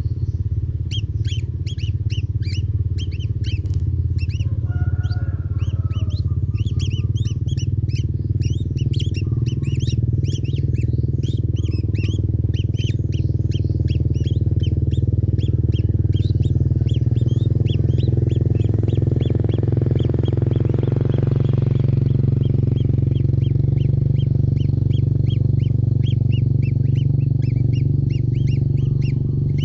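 Kingfisher nestlings calling: short, high chirps repeated several times a second without a break, over a loud, steady low hum.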